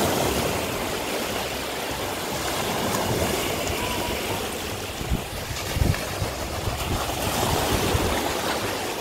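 Small ocean waves breaking and washing up the sand at the water's edge, a steady rush and fizz of surf. A couple of brief low thumps come about five to six seconds in.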